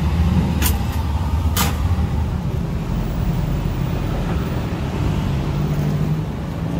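Road traffic with a vehicle engine running close by, a steady low rumble. Two sharp clicks come about a second apart near the start.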